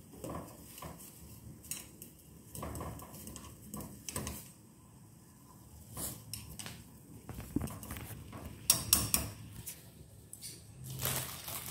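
Intermittent clinks and knocks of a stainless steel saucepan and utensils being handled on a gas hob. Near the end comes the crinkling of a plastic instant-noodle packet.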